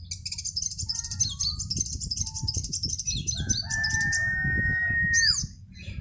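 High, rapid chattering of caged sunbirds (sogon, brown-throated sunbird) for the first three seconds. Then a rooster crows once, a long held call that falls away at its end.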